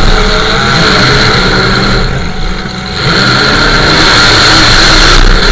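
Demolition derby truck's engine running hard, heard from inside the stripped cab; it eases off for about a second around two seconds in, then comes back up.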